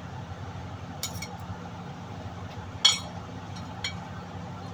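A cooking utensil clinking against a pan a few times as the pork chop, carrot and baby corn stir-fry is mixed and lifted out, the loudest clink about three seconds in, over a steady low hum.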